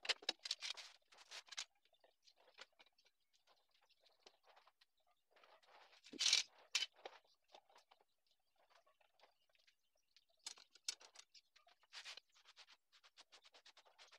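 Faint handling noises from a cutting-board glue-up: hardwood strips knocked and slid together and steel bar clamps fitted, heard as scattered clicks, taps and short scrapes. They come in three brief clusters: at the start, in the middle and about three-quarters through, with near silence between.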